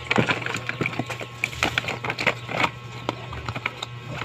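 Irregular clicks, taps and rustles of plastic dolls and their cardboard-and-plastic packaging being handled, over a steady low hum.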